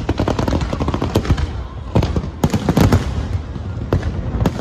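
Fireworks display: a dense, rapid run of bangs and pops, loudest in a cluster a little past halfway.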